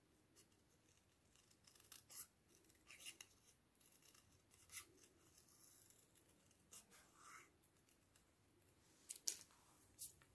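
Small scissors snipping around stamped card flowers: quiet, irregular snips a second or two apart, the sharpest near the end.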